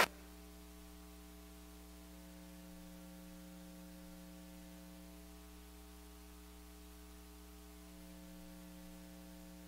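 Faint, steady electrical mains hum with its ladder of overtones.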